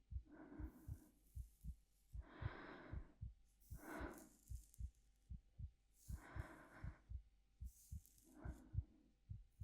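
A soft, slow heartbeat: steady double thumps at a little over one a second. Over it, a woman's quiet, breathy breaths in and out every couple of seconds.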